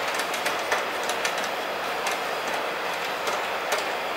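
Small irregular clicks and rattles of cable plugs and wires being handled and pushed into the back-panel terminals of a karaoke amplifier, over a steady background hiss.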